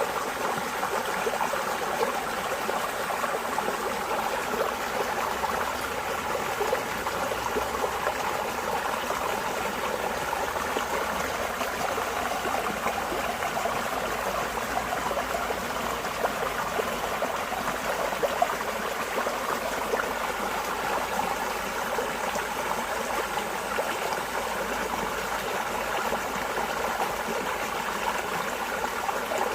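Flowing water running steadily, like a shallow stream, a dense continuous splashing with no pause or change.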